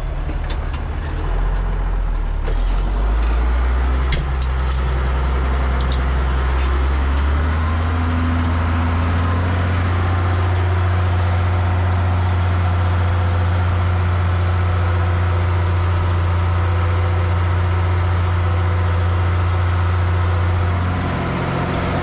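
Tractor engine pulling a plough. The engine note rises over the first several seconds as it takes the load, runs steadily, then eases off about a second before the end.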